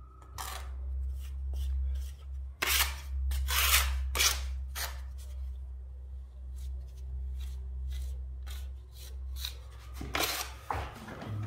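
Metal hand tool scraping and carving tile-adhesive render into imitation stone at a wall corner: a few short scrapes, the strongest around three to four seconds in and again near the end, over a steady low hum.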